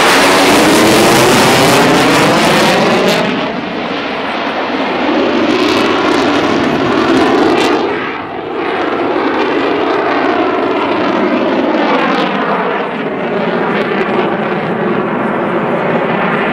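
Eurofighter Typhoon's twin EJ200 turbofan engines running loud as the jet flies past, the sound sweeping through shifting tones. The sharp high hiss drops away about three seconds in, with a brief dip near eight seconds.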